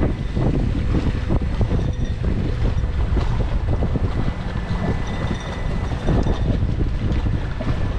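Wind buffeting the camera microphone aboard a small moving sailboat: a loud, continuous, gusty rumble.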